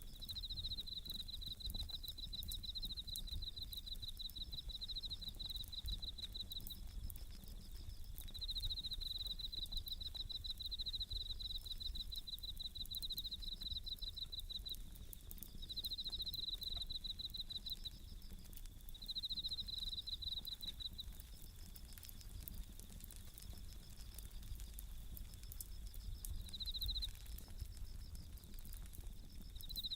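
Bell crickets (suzumushi) singing in repeated bouts of rapid, high, pulsed chirping, each lasting a second to several seconds with short pauses between. A wood campfire crackles lightly throughout.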